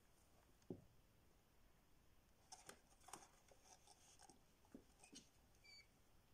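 Faint scratching and rustling from a pet rat moving about in its cage: a soft thump about a second in, then a few seconds of light, scratchy clicks.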